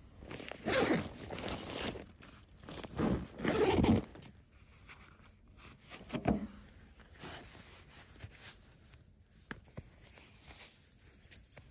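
Camping gear being handled: rustling and zipping of fabric, louder in two stretches in the first four seconds, then scattered light clicks and knocks.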